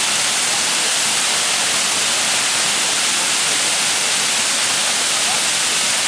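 Rochester Falls rushing steadily, a continuous hiss of water pouring over rock into a pool.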